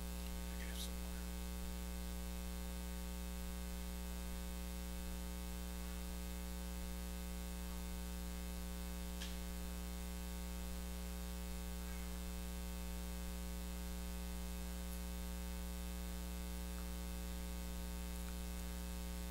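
Steady electrical mains hum with a stack of buzzing overtones, unchanging throughout, with a couple of faint ticks.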